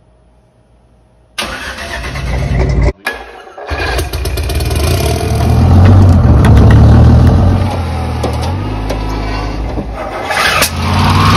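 A string of cut-together engine clips. After a second of near silence, an engine starts and runs. The sound breaks off briefly about three seconds in, then a heavy excavator's engine runs loudly with its pitch stepping up and down, and near the end there is an abrupt cut to another engine running.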